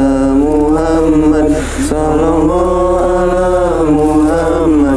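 A man chanting a sholawat, the Islamic blessing on the Prophet, in long held notes: two drawn-out phrases with a short break near two seconds in, over a steady low hum.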